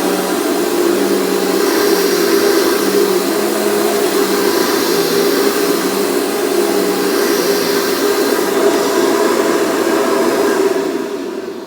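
Dirt Devil Featherlite Plus upright vacuum cleaner running steadily, a loud motor hum under a broad airflow hiss, then dying away near the end.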